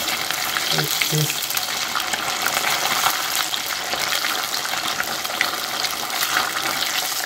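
Thin-cut tilapia pieces deep-frying in hot oil: a steady sizzle with constant fine crackling. The pieces are crisp and done.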